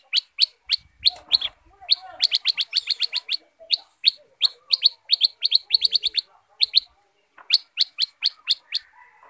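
Black-headed bulbul (kutilang sutra) calling in rapid runs of sharp, high chirps, several a second, broken by short pauses and a longer break about seven seconds in.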